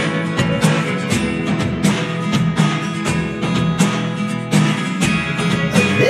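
Music led by a strummed acoustic guitar, with a steady beat.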